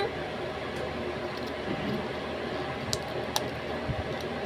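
Faint clicks and handling of plastic surprise-egg shells being pried open by hand, two sharp clicks about three seconds in, over a steady background hiss.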